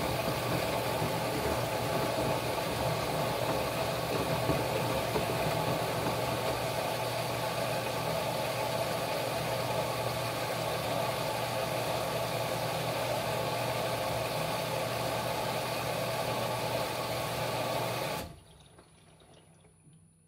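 A 'black noise' ambient track: a steady, dense, engine-like drone with a low hum. It cuts off abruptly about 18 seconds in, leaving only faint room tone.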